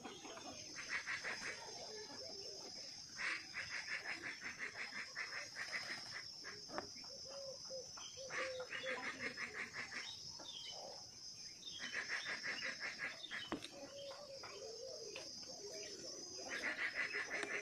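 Outdoor animal sounds: a steady high insect drone, with rapid chirping trills that come in bursts of a second or two, five or six times.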